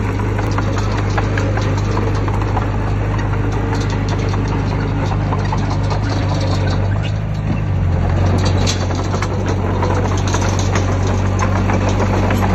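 Heavy diesel engine of earthmoving machinery running steadily, with irregular metallic clicks and rattles over it; the engine note shifts slightly about eight seconds in.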